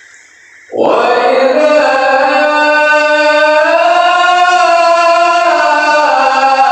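A male qori beginning a melodic Quran recitation (tilawah): after under a second of quiet his voice enters loudly and holds long, ornamented notes that slide slowly up and down in pitch.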